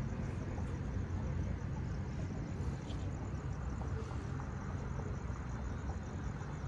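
Steady low background rumble by a city road, with no distinct event standing out.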